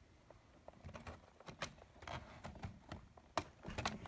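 A pry tool scraping faintly along the seam of a Lenovo ThinkPad T470's bottom cover, with a few sharp plastic clicks as its stiff retaining clips are worked loose; the loudest click comes about three and a half seconds in.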